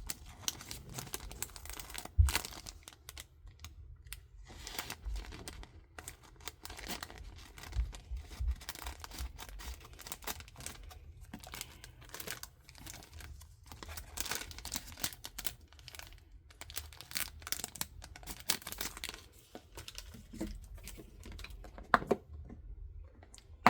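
Hands handling packaging and small storage containers: irregular rustling and crinkling with scattered clicks and knocks, a sharp knock about two seconds in.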